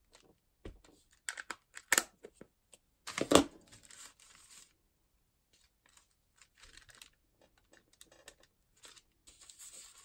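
Craft-table handling: a plastic ink pad dabbed and tapped against a clear acrylic stamp block, with a sharp clack about three seconds in. This is followed by soft rustling of thin rice paper being handled and lifted near the end.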